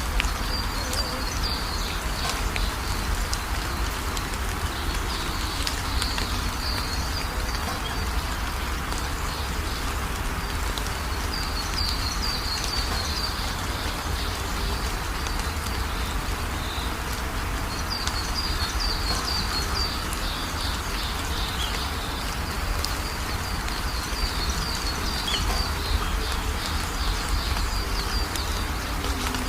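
Steady rainfall in a forest, with clusters of high, thin chirping calls from small animals coming and going over the rain several times.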